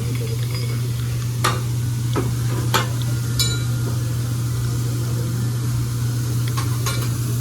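Food sizzling on a hibachi griddle, with several sharp metal clicks of utensils on the hot plate, over a steady low hum.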